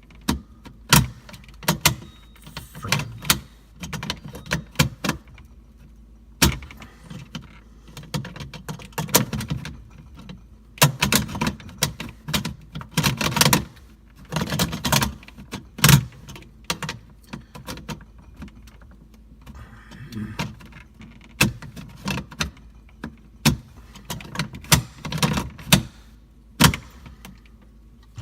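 Irregular plastic clicks, taps and rattles from handling an LG refrigerator's LT120F air filter and its snap-in housing, whose cover has been broken.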